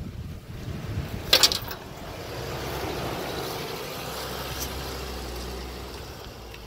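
Hummer H3's 3.5-litre five-cylinder engine running as the truck drives off-road, with a sharp knock about one and a half seconds in.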